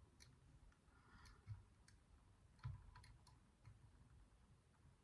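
Faint, irregular small metal clicks of a lever lock pick and tension tool working the levers inside a 4-lever drawer lock, with two slightly sharper clicks about a second and a half and two and a half seconds in.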